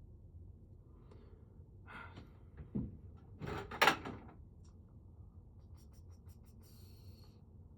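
Rummaging through small metal tools and hardware: a knock, then a short rustling clatter about three and a half seconds in, followed by a few light clicks and a brief high squeak near the end.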